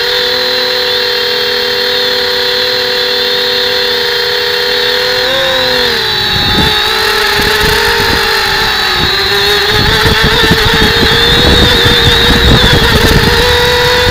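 Steady whine of a camera drone's electric motors and propellers. The pitch dips briefly about five seconds in, and from then on wind buffets the microphone in low rumbling gusts that grow louder.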